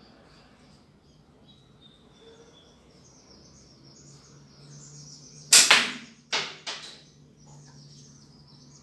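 A slingshot shot: one loud sharp snap of the flat rubber bands as the shot is released, followed less than a second later by two quicker, quieter smacks of the ball striking at the target end. Faint birdsong runs underneath.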